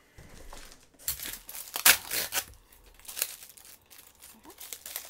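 Plastic packaging crinkling and rustling as it is pulled off and handled, in a run of crackles with the loudest about two seconds in.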